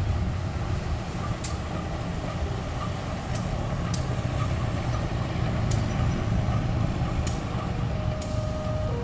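CC 203 diesel-electric locomotive's V12 diesel engine running hard as it pulls the train away from a standstill: a heavy, steady low rumble with occasional sharp clicks. Steady musical tones start near the end.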